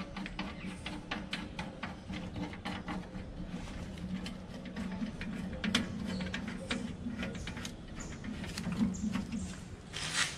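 Small metal clicks and light knocks from mounting bolts and nuts being fastened by hand inside a steel pannier box, over a faint steady low hum.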